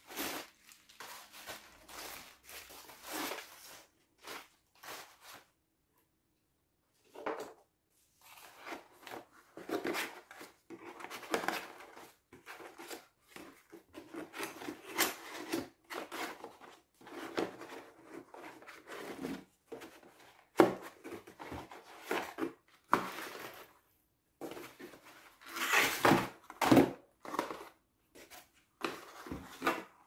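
Crumpled packing paper rustling and crinkling as it is pulled out of a cardboard shipping box. Then small cardboard product boxes slide and knock against each other and the box as they are handled, with a few sharp taps.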